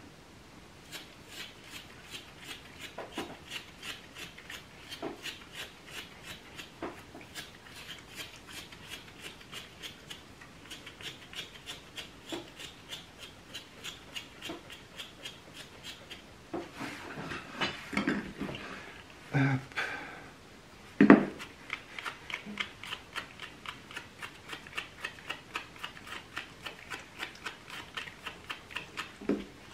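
A stripping tool raked repeatedly through a West Highland White Terrier's wiry coat during hand-stripping: short, scratchy, rasping strokes at about two or three a second. A few louder knocks come between about two-thirds of the way through, the loudest just past that.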